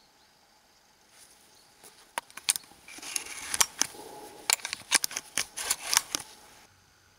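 Shotgun shells being loaded into a Browning Maxus semi-automatic shotgun: handling rustle and a quick run of sharp metallic clicks as the cartridges are pushed in through the loading port, stopping abruptly near the end.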